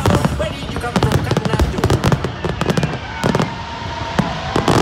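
Fireworks display: aerial shells bursting in a rapid volley, with many sharp bangs and crackles following one after another.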